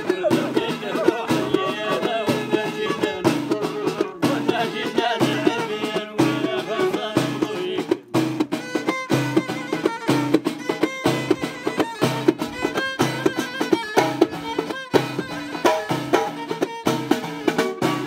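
Moroccan Amazigh folk music played live: a violin melody over several hand-held frame drums beating a steady rhythm. About eight seconds in the melody thins and the drum strokes stand out.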